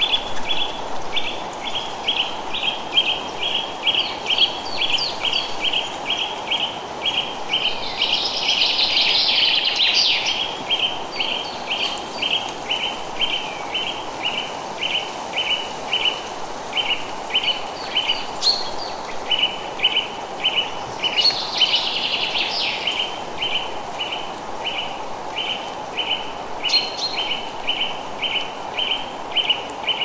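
Forest ambience: a short, high chirp repeated steadily about two and a half times a second, with two bursts of busier bird chatter, one about eight seconds in and one about twenty-one seconds in, over a steady hiss of wind in the trees.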